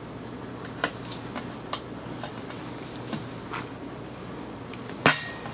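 Scattered light clicks and taps of tweezers and a fine-tip glue bottle handling small paper die-cut pieces on a craft mat, with one sharper click about five seconds in, over a steady low hum.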